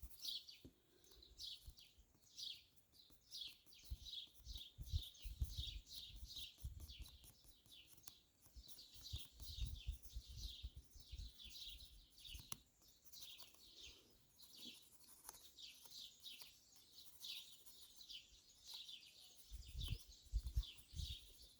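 Small birds chirping continuously, a quick series of short, falling chirps repeated several times a second. A few low rumbles come and go, around the middle and near the end.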